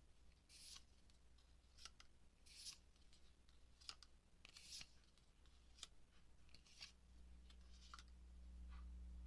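Very faint, short swishes of trading cards sliding against one another as they are handled and flipped, about one a second, over a low steady hum.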